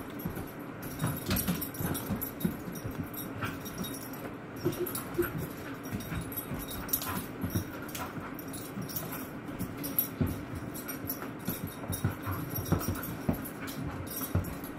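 A Border Collie and a puppy play-fighting: irregular scuffling and bumping on couch upholstery, with brief whimpers now and then.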